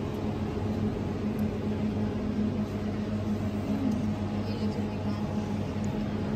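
Steady electrical hum from supermarket refrigerated drinks chillers, a low, even drone with a few fixed pitches that does not change.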